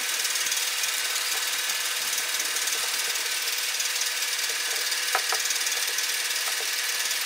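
A steady, loud hiss with a faint, even hum under it. A few light knocks come about five seconds in, from the wooden rolling pin rolling dough out on the round metal board.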